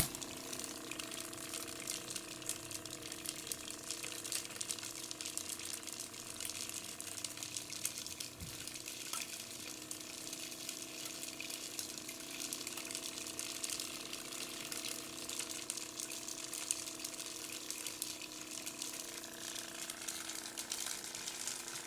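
Homemade bottle vacuum cleaner running steadily: a small motor's hum with the airy rush of its fan drawing in air.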